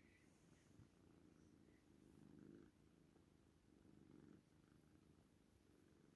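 Kitten purring faintly and continuously while being stroked, the purr swelling a couple of times.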